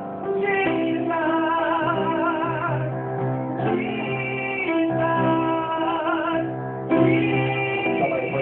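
Worship song sung with band accompaniment: voices holding long notes with vibrato over steady low bass notes, with a fresh phrase starting about a second in and again near the end.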